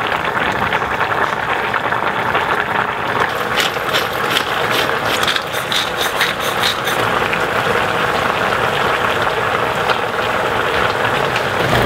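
Tomato mussel stew bubbling and crackling steadily in an enamel pot at a simmer, with a spell of sharper clicks partway through.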